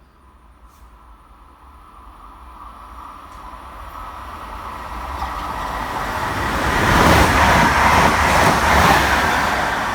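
A train approaching and passing close by, its noise growing steadily louder to a peak about seven seconds in and staying loud for a couple of seconds before starting to fade.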